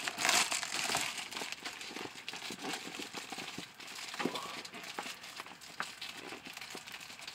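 Clear plastic wrapping crinkling and crackling as a rolled wall decal is handled and unrolled, loudest in the first second.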